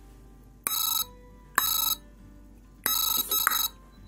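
Jaycar Jiminy the Cricket sound-activated kit sounding through its small speaker: four short, shrill electronic chirps at uneven gaps. The circuit sets off a chirp each time its electret microphone picks up a nearby sound.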